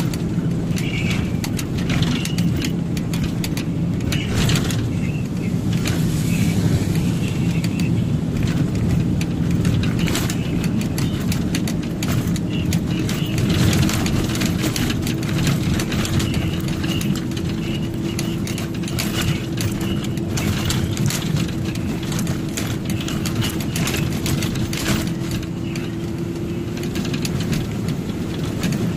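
A truck's engine running and its tyres on the road, heard from inside the cab while driving: a steady drone, with a tone that slowly rises in pitch through the second half.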